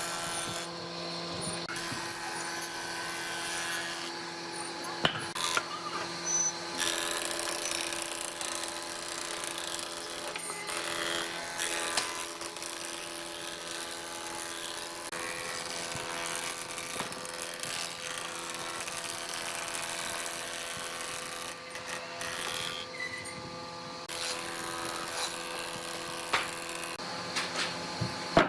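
A handheld electric power tool running on wood, its motor holding a steady tone and stopping and starting several times, with a few sharp knocks in between.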